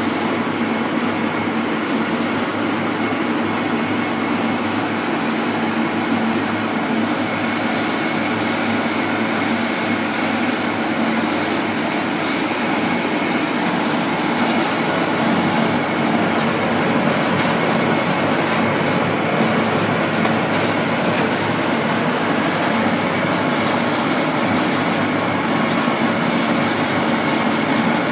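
XGJ560 sawdust pellet mill running, a loud steady mechanical grinding rumble with a constant low hum and a faint high whine.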